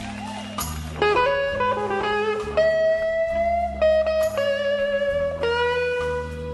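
Background music led by a guitar: sustained, slightly gliding notes over a steady bass line, with new notes struck about a second in and again every second or so.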